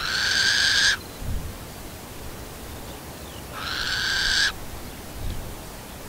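Little owl giving two rasping calls about three and a half seconds apart. Each lasts about a second, swells in loudness and then stops abruptly.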